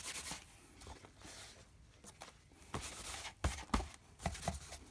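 Gloved hands pressing and smoothing wet, dye-soaked paper in a tray: soft rubbing and squishing, with a few light taps in the second half.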